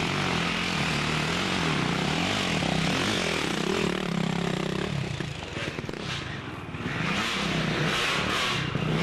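Dirt bike engine revving on a steep hill climb during a hare scramble. Its pitch rises and falls repeatedly, dropping back briefly about six seconds in before climbing again.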